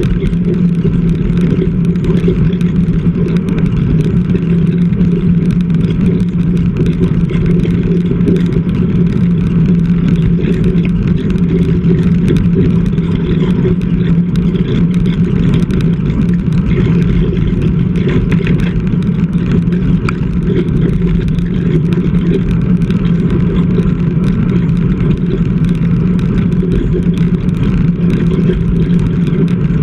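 Steady wind rush on the microphone of a bike-mounted action camera, mixed with tyre hum from a road bike rolling on tarmac at speed.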